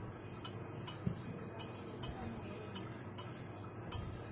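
Junghans wall clock's movement ticking steadily, about two ticks a second.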